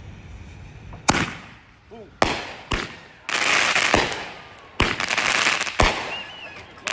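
Fireworks going off: a string of sharp bangs, about six in the space of five seconds, with stretches of dense crackling between them.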